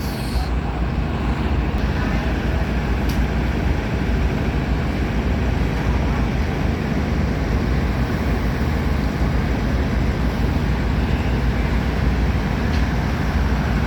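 Steady low rumble from a diesel passenger train alongside the platform.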